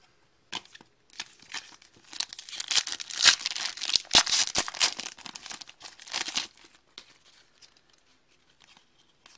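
The foil wrapper of a hockey card pack being torn open and crinkled by hand. The crackling starts about half a second in, is heaviest for a few seconds in the middle, and dies away after about six and a half seconds into a few faint clicks.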